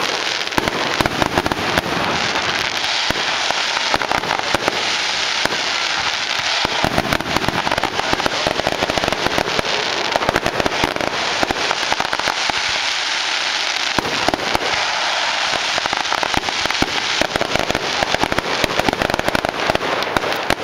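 Aerial fireworks display: a dense, continuous crackle of bursting shells, with louder bangs scattered through it.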